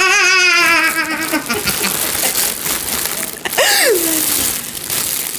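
A girl's voice raised to a squeaky pitch by inhaled helium, laughing: a long, wavering high squeal at the start, then a short squeal that drops sharply in pitch about three and a half seconds in, with hissing breath noise in between.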